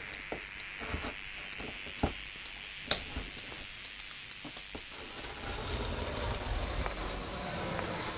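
Utility knife slicing through the thick cardboard of a large shipping box: scratchy cutting with many small clicks and ticks, one sharper click about three seconds in.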